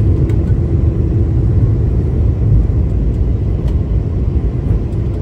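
Cabin noise of a Boeing 717 climbing out just after liftoff: a loud, steady low rumble from its two rear-mounted Rolls-Royce BR715 turbofans at takeoff power, with airflow over the fuselage.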